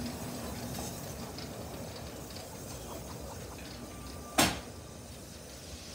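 A small narrow gauge steam locomotive and its carriages pulling away, heard as a faint, steady rumble with light ticks and clatter from the wheels and rails. A single sharp knock comes about four seconds in.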